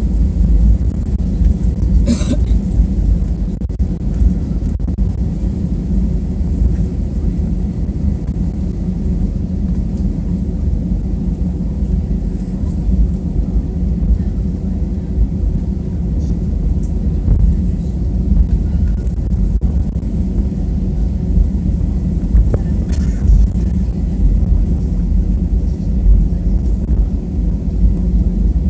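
Airbus A320 cabin noise heard from a rear window seat: a steady low rumble of the engines and airframe as the plane moves on the ground. There is a brief sharp click about two seconds in.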